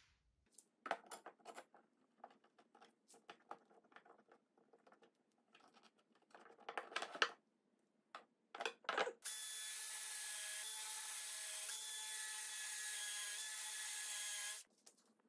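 Wood pieces and a metal bar clamp knocked and shifted about on a workbench, then a cordless drill runs steadily for about five seconds, boring a hole in a red oak block, and stops suddenly near the end.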